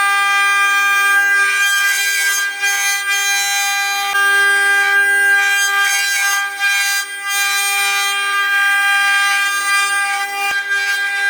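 CNC milling machine running with a steady high-pitched whine, with rough noise swelling and fading twice.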